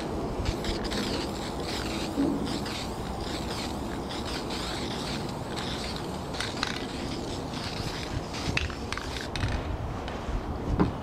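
Aerosol spray can of Dupli-Color primer sealer spraying in a series of short hissing bursts.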